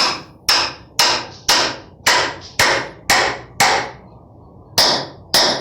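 Hammer striking wooden concrete form boards to knock them loose from a cured slab: about ten sharp blows, roughly two a second, with a short pause about four seconds in.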